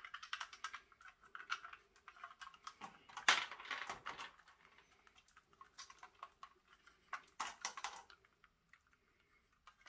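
Lego plastic parts clicking and rattling in the hands as a train locomotive is handled and its connector cable is fitted in. The clicks are light and irregular, with louder clusters about three seconds in and again about seven seconds in.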